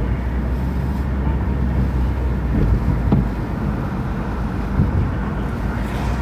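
Steady low rumble of a car, heard from inside its cabin, with its engine running.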